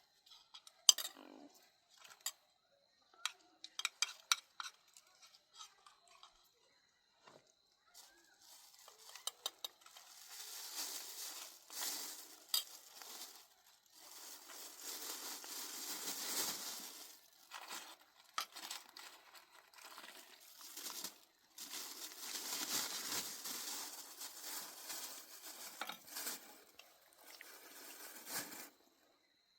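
Scattered sharp clicks and taps, like dishes and cutlery being handled, then from about ten seconds in a long stretch of hissing, scraping noise that comes in waves.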